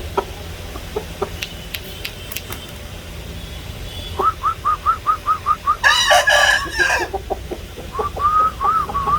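Chickens clucking in a fast run of short, evenly spaced notes from about four seconds in. A rooster breaks in with one short, loud crow lasting about a second, and more rapid clucking follows.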